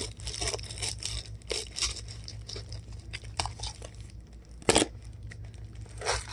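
Packaging being handled and torn open: scattered rustling and crinkling, with one loud, short tear about four and a half seconds in, over a low steady hum.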